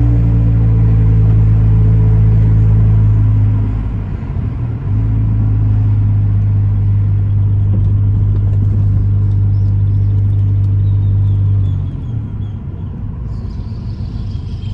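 Hyundai i30's engine and exhaust droning loudly at steady revs, with the exhaust running without a muffler. The drone dips briefly about four seconds in, comes back, then drops away near the end.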